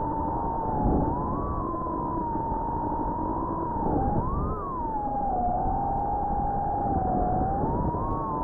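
Brushless motors of a 4-inch FPV quadcopter whining, the pitch wavering and dipping then jumping back up several times as the throttle changes.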